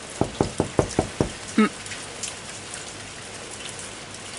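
Steady rain falling, a continuous hiss, with a quick run of about six thumps in the first second and a half.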